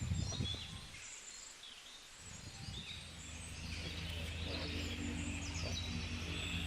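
Birds chirping. A steady low hum comes in a little over two seconds in.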